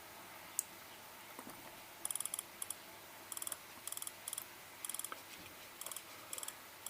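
Click-wheel clicker of a first-generation iPod Nano ticking in quick bursts as the wheel is scrolled, the player working again with its new battery. After a single click early on, bursts of rapid, high, thin ticks come about every half second.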